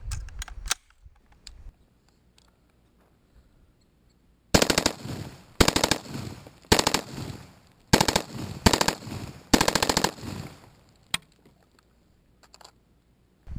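AR-15 rifle with a 16-inch barrel and a VG6 Gamma 556 muzzle brake firing .223 on full auto, in six short bursts, each under a second long. The bursts start about four and a half seconds in and follow one another over the next six seconds.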